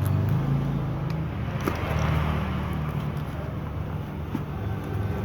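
A low, steady motor hum like a vehicle engine running, wavering slightly in pitch, with a few faint clicks over it.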